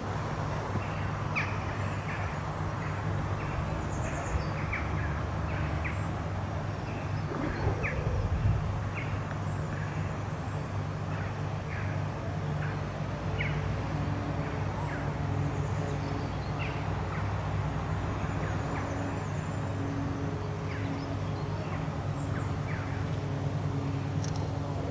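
Small birds chirping and singing in short calls with a few high trills, over a steady low hum.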